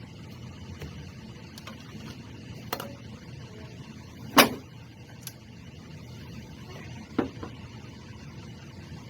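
Scattered clicks and knocks of hand tools on a VW Beetle engine during disassembly, with three louder knocks, the loudest about four and a half seconds in, over a steady low hum.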